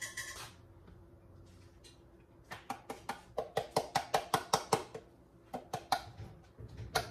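A rapid run of small clinks and taps, about four or five a second, from a hand working at a plastic tub of ground coffee. It starts about two and a half seconds in, pauses briefly, then resumes near the end. The burr grinder is not running.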